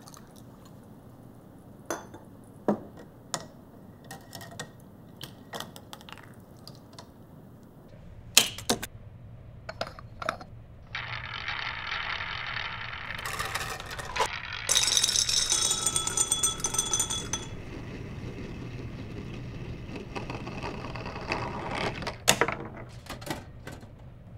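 A chain-reaction contraption of lab glassware, PVC pipe and marbles running step by step: scattered mechanical clicks and knocks. About a third of the way in a low hum starts, and near the middle a steady rushing rattle lasts several seconds.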